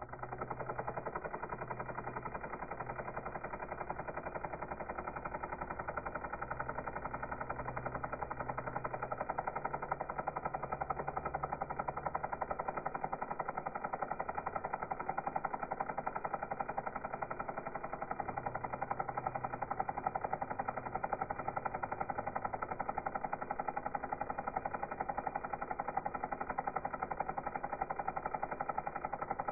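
Helicopter running, its rotor blades beating in a fast, even chop that holds steady throughout.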